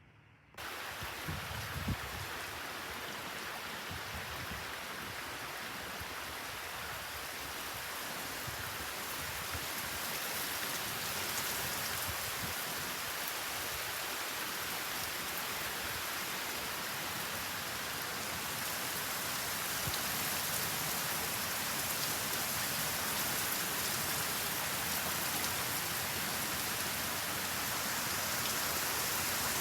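Torrential thunderstorm rain pouring down in a dense, steady hiss that starts abruptly and grows a little heavier towards the end. A couple of low thumps come about two seconds in.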